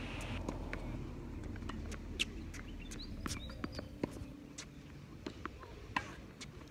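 Tennis rally on a hard court: a series of short, sharp knocks of the ball coming off the racket strings and bouncing, the loudest about two seconds in and about six seconds in. Birds chirp faintly in the background.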